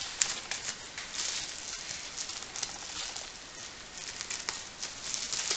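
Scissors cutting through bubble-wrap packaging, the plastic crinkling and rustling with many small sharp clicks.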